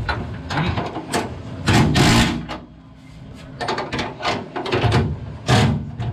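Impact wrench run in several short bursts to drive a bolt down through the trunk floor while the bolt head is held with a wrench. The longest burst comes about two seconds in and a shorter one near the end, with small metal clatter between.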